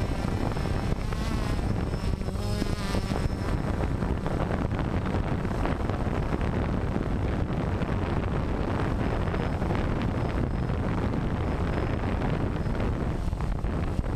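DJI Phantom quadcopter's electric motors and propellers running in flight, a steady buzz picked up by the camera mounted on the drone itself. A higher whine wavers in pitch for a moment about two seconds in.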